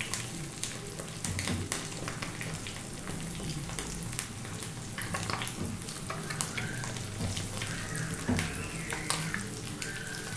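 A fried egg sizzling in melted butter in a skillet, a steady sizzle with frequent small crackles and pops.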